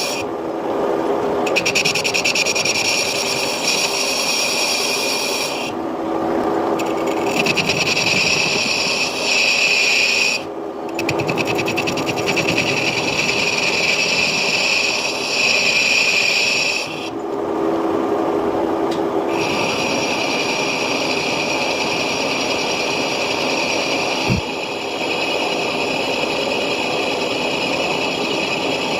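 Metal lathe turning a cast-iron workpiece: a steady, loud scraping of the cutting tool on the iron, which drops away briefly several times. A single sharp click near the end.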